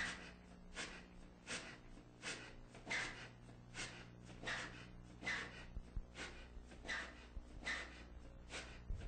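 Wooden oil-well pumping rig of an endless-cable system creaking as it works, one short squeak about every three-quarters of a second in an even rhythm, over a steady low hum.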